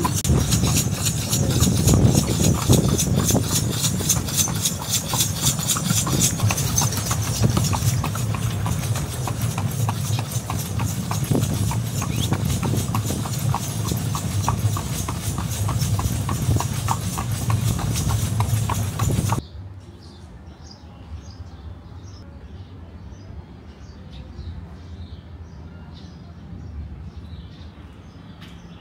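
Horse hooves clip-clopping in a steady rhythm on the road, the sound of a cidomo horse cart, Gili Trawangan's usual taxi. About two-thirds of the way through it cuts off suddenly to a much quieter scene with faint bird chirps.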